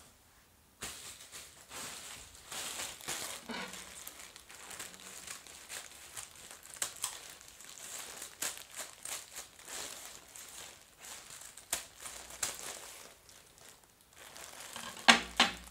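Thin plastic postal bag crinkling as it is handled and cut open with scissors, in an irregular run of crackles after a quiet first second. A short, louder sound comes about a second before the end.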